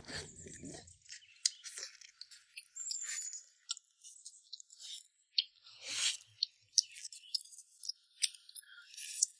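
Quiet eating sounds: chewing, with scattered small clicks and clinks of utensils against bowls.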